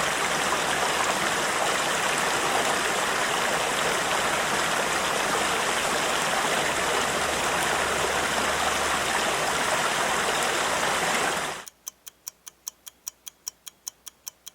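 River water rushing in a steady even flow, which cuts off suddenly near the end. Then a countdown timer ticks about four times a second.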